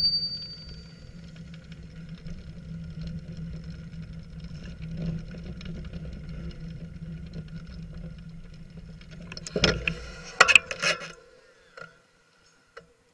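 Steady low rumble of a bicycle rolling along a concrete footpath, with the ring of its bell dying away at the start. About nine and a half seconds in comes a cluster of loud knocks and rattles as it comes to a stop, then it goes nearly quiet.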